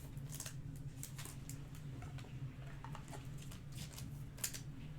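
Trading cards being handled at a table: soft scrapes and light clicks as cards are slid, sorted and stacked, over a steady low electrical hum.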